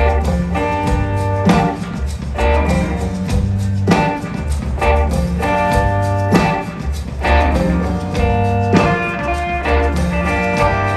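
Live blues-rock band playing an instrumental passage: a guitar riff over bass and drums, with heavy accented hits about every two and a half seconds.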